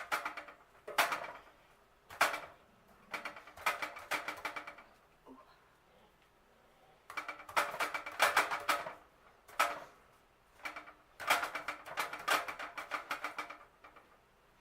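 Quick clusters of clicks and taps with a brief metallic ring as a utensil pokes holes in sausages and strikes the bottom of the baking pan. The bursts come and go, with short quiet gaps between them.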